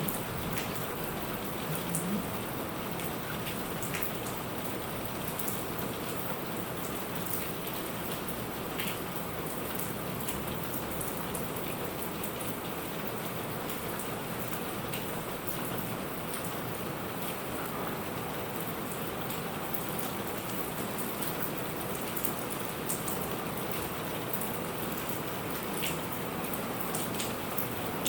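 Steady rain falling, an even wash of noise with individual drops ticking sharply here and there.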